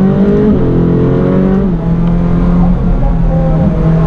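McLaren 720S twin-turbo V8 accelerating hard through the gears, heard from inside the cabin: the engine note climbs, drops at an upshift about half a second in and again near two seconds, then climbs again.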